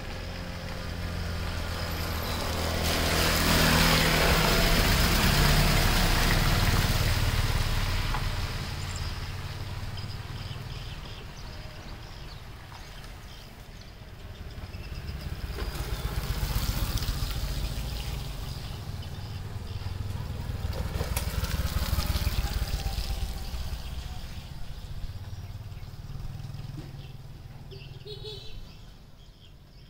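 Motor vehicles passing, their engine noise swelling and fading several times: loudest a few seconds in, and again around the middle and two-thirds of the way through.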